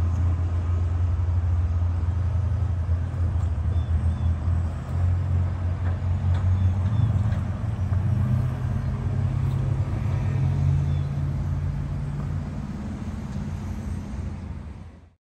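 Low, steady vehicle engine rumble that eases off over the last few seconds, then cuts off abruptly.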